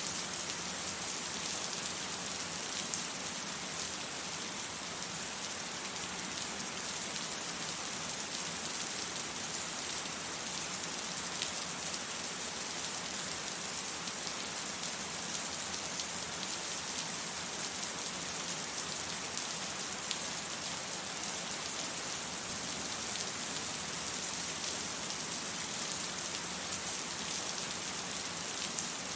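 Steady rain falling on hard surfaces, an even hiss with fine pattering drops and no thunder.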